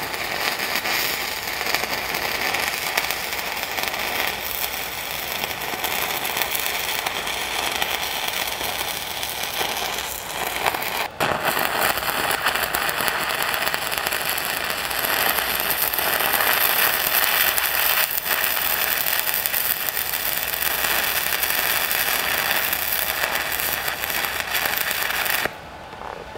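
Stick-welding arc of a 6010 electrode crackling steadily as it digs a root pass into steel, with a brief break about eleven seconds in. The arc stops near the end.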